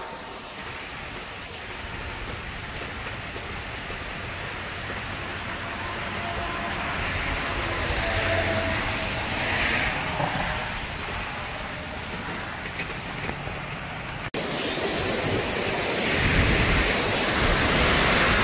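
Hurricane winds rushing through a tall bamboo thicket and trees: a steady rush of noise that swells and eases with the gusts. About three quarters of the way through it breaks off suddenly and comes back louder and hissier.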